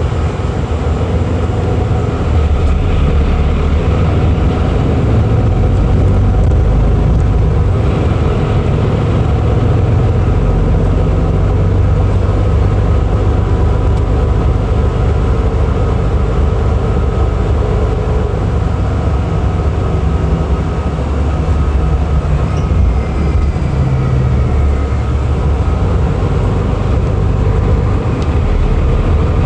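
Inside a Nishitetsu articulated bus under way: steady engine drone and road rumble, with a faint steady whine above it.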